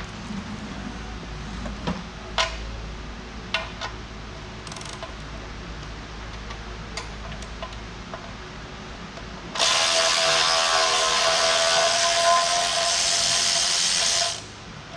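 A handheld power tool running in one steady, loud burst of about five seconds, starting around ten seconds in and cutting off abruptly just before the end. Before it, a few sharp metal clicks of tools against the loader frame.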